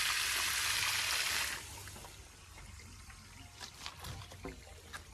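Tractor engine running low under a loud rushing hiss that cuts off abruptly about one and a half seconds in, leaving the low engine hum and scattered light clicks.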